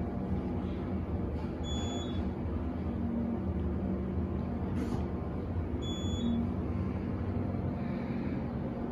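Modernized Otis hydraulic elevator car travelling upward: a steady low hum and rumble of the ride. Short high beeps sound twice.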